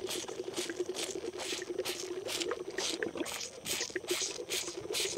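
A calf sucking formula from a nipple bottle: quick, wet sucking and slurping strokes, about three a second.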